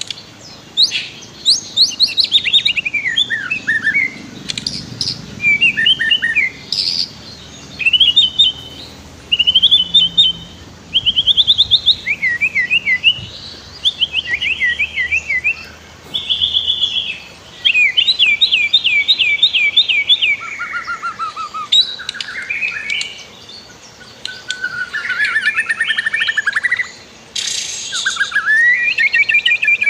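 White-rumped shama singing a long, varied song: quick whistled phrases and rapid trills of repeated notes, one after another with short pauses between them.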